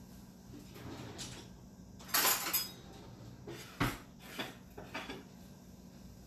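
Kitchen clatter of dishes and cutlery: a brief louder rattle about two seconds in, then a few separate clinks and knocks, over a faint steady hum.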